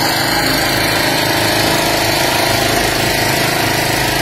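Small petrol engine running steadily at a constant speed.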